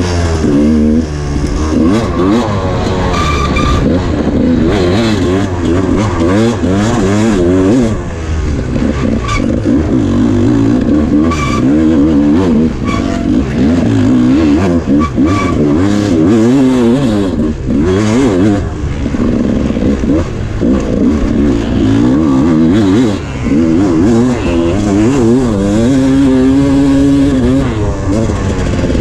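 Dirt bike engine heard from on the bike as it is ridden, revving up and down continually with the throttle, its pitch rising and falling every second or so, with occasional knocks.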